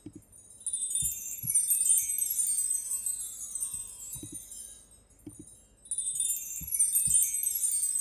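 Sampled chime tree (bar chimes) from GarageBand's Orchestral Kit, played twice: each stroke is a downward cascade of shimmering metallic tones that fades over a few seconds. The first comes about a second in and the second about six seconds in.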